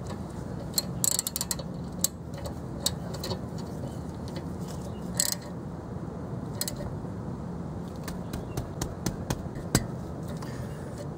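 Ratchet wrench clicking in short, irregular runs as a bolt on the brake assembly is tightened, the clicks coming quicker near the end.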